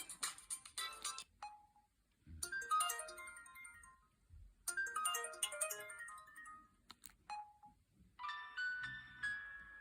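Samsung GT-C5212i mobile phone playing its built-in polyphonic ringtones through its speaker: short melodic phrases of bright electronic notes, starting about two seconds in, again about four and a half seconds in and near the end. A single short beep comes before the first and last phrases.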